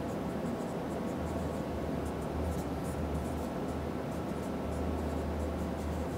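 Marker pen writing on a whiteboard: faint short scratching strokes as numbers and a fraction are written out, over a steady low hum.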